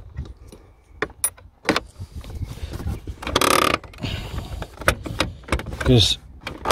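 Audi TT Mk2 handbrake being pulled up, its ratchet clicking many times, with a short rasping noise partway through. It takes quite a few clicks rather than the couple it should, a sign that the handbrake cables still need tightening quite a bit.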